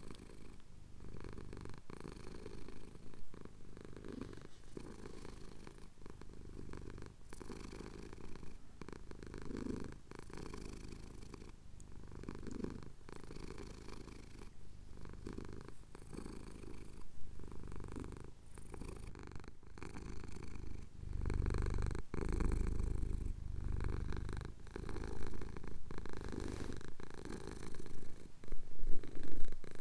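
Domestic cat purring close to the recorder as its chin is scratched, a steady low rumble that swells and fades every couple of seconds, with a louder stretch about two-thirds of the way through.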